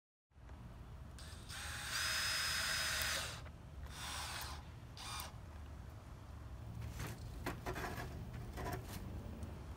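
Cordless drill driving screws through a plastic window frame into a wooden playhouse panel: one run of about a second and a half with a steady high whine, about a second and a half in, then two shorter runs. A few sharp clicks and knocks follow near the end.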